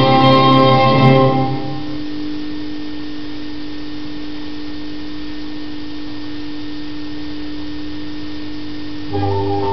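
Orchestral music that thins after about a second and a half to one steady, held low note lasting several seconds, before the full orchestra comes back in near the end.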